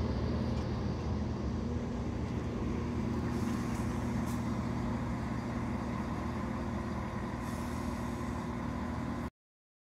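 East Midlands Railway Class 170 Turbostar diesel multiple unit standing at the platform with its underfloor diesel engines running, a steady low hum and rumble. It cuts off suddenly near the end.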